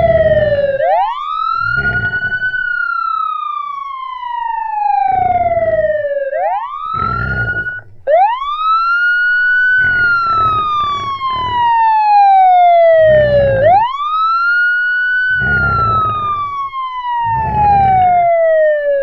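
Police siren wailing, each cycle rising quickly in pitch and then falling slowly, repeating about every six seconds. Short clusters of pig grunts and oinks break in over it again and again.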